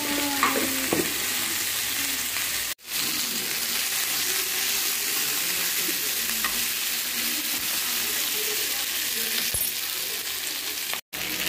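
Cut drumstick (moringa) pods sizzling in hot oil in a nonstick frying pan while being stirred with a metal spoon: a steady frying hiss that drops out briefly twice.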